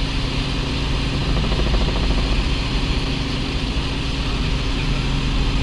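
Light helicopter in level cruising flight, heard from inside the cockpit: a steady drone of engine and rotor over a constant rushing hiss.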